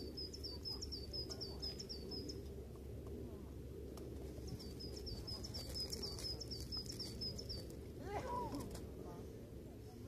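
A small songbird singing a quick run of sharp, high notes, about three a second, in two bouts of roughly three seconds each, over a steady low rumble.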